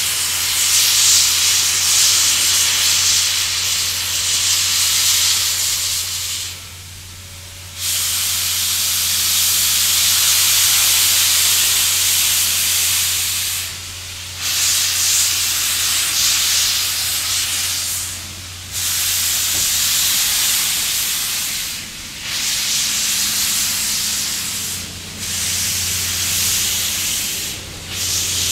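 Reading T-1 class 4-8-4 steam locomotive No. 2102 hissing loudly as steam escapes, a steady rush with a low hum beneath it. The hiss drops away briefly about six times.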